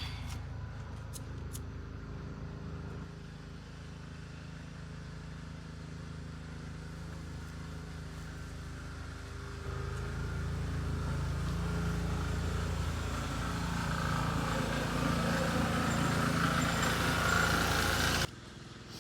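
A motor vehicle engine running steadily. It gets louder about ten seconds in and cuts off abruptly just before the end.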